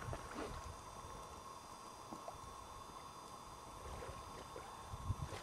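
Faint ambience of calm seawater at a rocky shore, with a few soft, brief water sounds as a snorkeler wades, and a low bump near the end.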